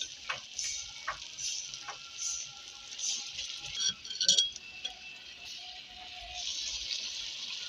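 A metal ladle clinking lightly and irregularly against a steel pot as boiled, mashed mustard greens are scooped out, the loudest clink about four seconds in. Under it runs a steady sizzling hiss from the tomato masala frying in the iron kadhai.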